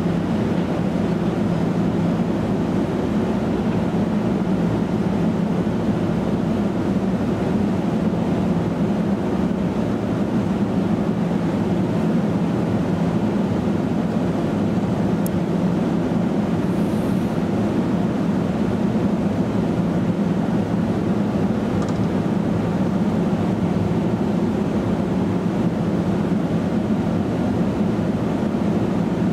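Steady hum of a standing NJ Transit multilevel commuter train's onboard equipment running, unchanging throughout.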